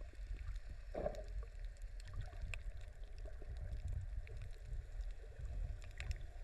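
Muffled underwater ambience picked up by a camera in the sea: a low, unsteady rumble of water with scattered faint clicks and crackles, and a brief low burble about a second in.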